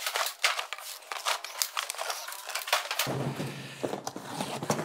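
Cardboard boxes being opened and hard plastic interlocking floor tiles (Swisstrax Ribtrax) being handled and stacked: a quick run of sharp clicks and knocks with cardboard rustling.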